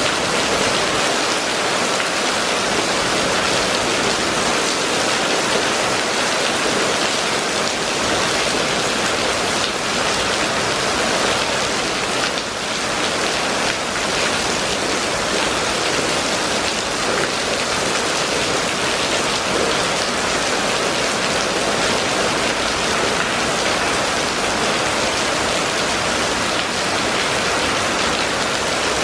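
Rain falling steadily on a wet paved street, an even hiss that holds at the same level throughout.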